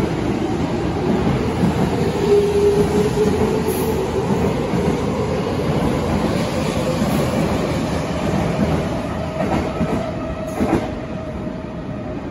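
Toyo Rapid Railway 2000 series electric train accelerating out of the station past the platform, wheels rumbling and clacking on the rails, with a motor whine that climbs in pitch through the first half. The sound grows quieter near the end as the last car leaves.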